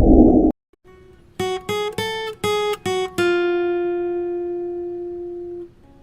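Guitar music: five short plucked notes, then one long note left ringing for a couple of seconds. It opens with a short burst of noise that cuts off about half a second in.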